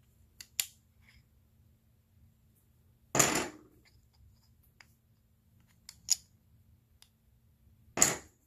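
Thick poker-style game chips clicking and sliding against one another as a stack is shuffled in the hand: two light clicks near the start, a longer clack about three seconds in, two more clicks around six seconds, and a final clack near the end.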